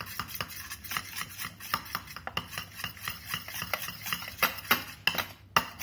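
Metal spoon stirring and scraping in a small stainless-steel bowl, mixing crushed powder blush with glycerin: many quick, irregular clinks, with a few louder knocks near the end.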